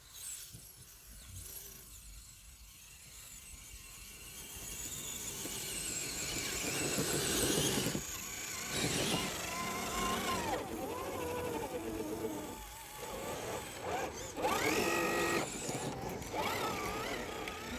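Whine of a radio-controlled crawler's electric motor and gears, its pitch rising and falling with the throttle. It grows louder from about four seconds in.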